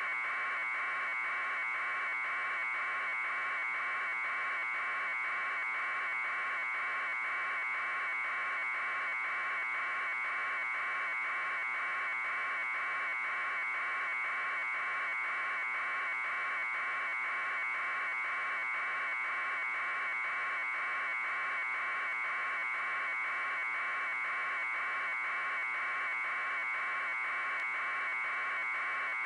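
News helicopter's rotor and engine noise carried on its video feed: a steady buzzing hiss in the middle range with a fast, even pulsing.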